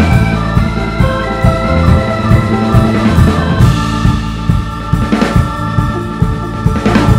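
Live band music: a drum kit plays a steady beat under sustained pitched instrument tones.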